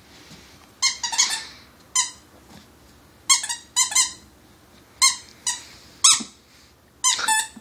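Squeaky plush dog toy squeaking as the puppy bites it: about ten short, sharp squeaks at irregular intervals.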